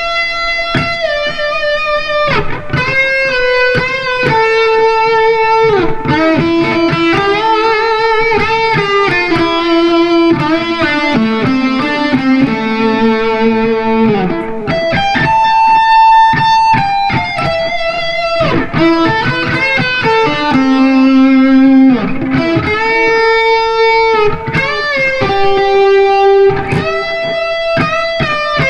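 Replica Gibson Les Paul Custom electric guitar, just given a pro setup, played through a Marshall MG100HFX head and 4x12 cabinet. It plays a sustained single-note lead melody with string bends and vibrato.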